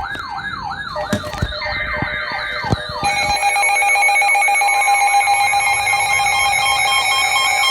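An electronic alert siren yelping, its pitch rising and falling about three times a second. About three seconds in, a steady, shrill alert tone comes in and keeps sounding: the alarm that comes before a severe thunderstorm warning is read.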